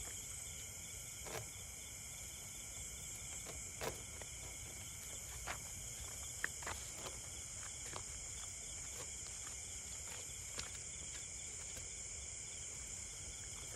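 Steady, high-pitched insect chorus, with a few brief clicks and taps scattered through it.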